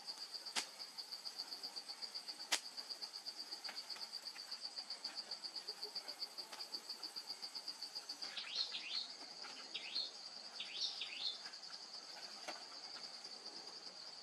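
Forest insect chirring steadily in a fast, even pulsing trill. About eight seconds in a bird calls several quick, falling chirps. A couple of short sharp knocks can be heard, the loudest about two and a half seconds in.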